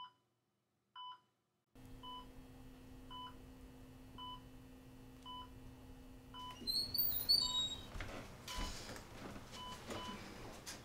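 Hospital heart monitor beeping steadily, one short high bleep about once a second, over a low steady hum. Around seven seconds in there is a louder patch of brief high chirps and rustling.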